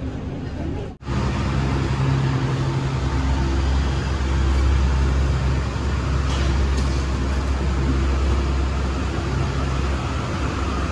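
Airport shuttle bus engine running with a steady low hum as the bus drives, heard from inside the cabin. The sound drops out sharply for a moment about a second in.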